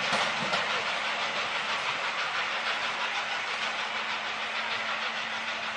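Rear coaches of a passing steam-hauled train rolling away on the rails: steady wheel and rail noise, slowly fading.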